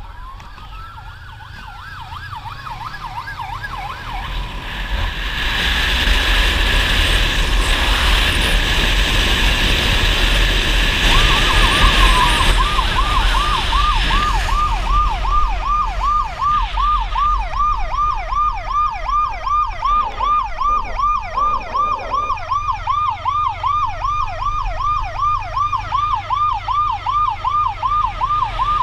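Motorcycle escort siren: a rising wail at the start, then from about eleven seconds a fast yelp repeating about three times a second. Underneath, wind and engine noise swell as the bike gets up to speed.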